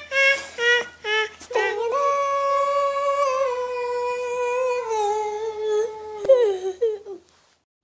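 A high-pitched voice sings a few short notes, then holds one long note for about five seconds. The note wavers near its end, and the sound cuts off suddenly.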